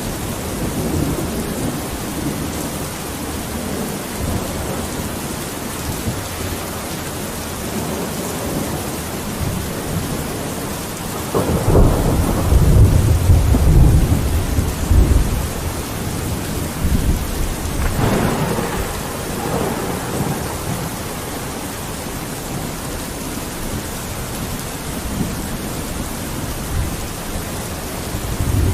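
Steady rain falling on a window. Thunder rolls in just before halfway, the loudest part for about five seconds, and a softer roll follows a few seconds later.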